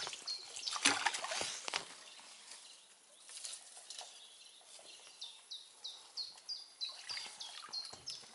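Grass and reed stems rustling and scraping against an inflatable boat for the first couple of seconds. Then a bird calling steadily: short, high chirps that slide down, about three a second.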